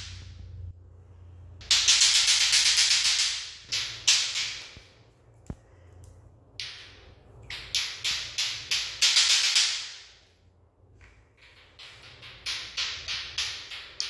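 Rapid rattling in several bursts of quick strokes, each lasting a second or two, with short pauses between them.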